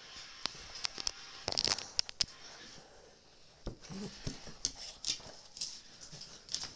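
Cavalier King Charles spaniel playing tug with a rope toy right at the microphone: irregular clicks, scuffs and knocks from the dog's mouth, the toy and the jostled phone.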